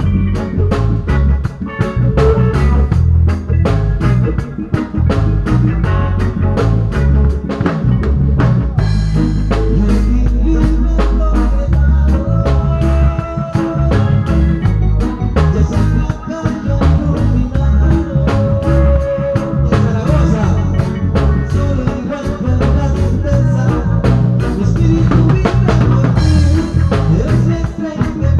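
A band playing upbeat music with a steady drum kit beat, bass and guitar, in a ska-like rhythm; a long held bass note comes about a third of the way in.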